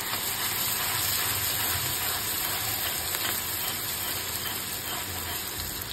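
Chopped onions frying in hot oil in an iron kadhai: a steady sizzle.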